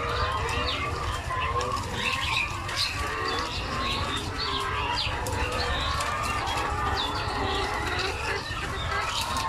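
Many laying hens in a flock clucking and calling over one another without a break, over a steady low rumble.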